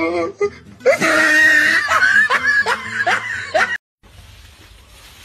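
Shrill laughter in quick repeated pulses, cut off suddenly near the end, then a faint steady background hiss.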